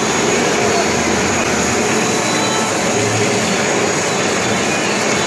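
Steady, loud machine noise of a running puffed-corn snack production line, an even whir without breaks.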